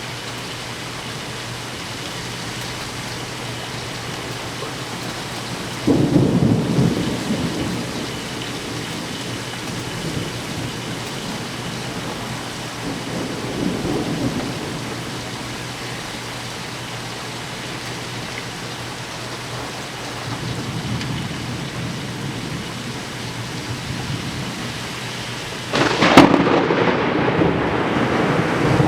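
Rain falling steadily in a severe thunderstorm, with thunder: a sudden loud clap about six seconds in, softer rumbles later on, and the loudest crack of thunder near the end.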